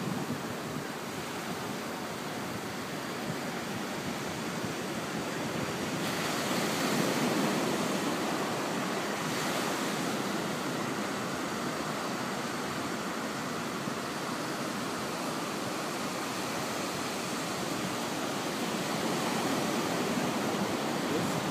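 Ocean surf: small waves breaking close by and washing up the sand in a continuous rushing, swelling louder about six seconds in and again near the end.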